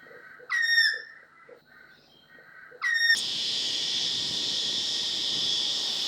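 Australian magpie calling: two loud, rich notes that slur downward, over faint chirping from other birds. About three seconds in, the sound switches abruptly to a steady, high-pitched insect chorus.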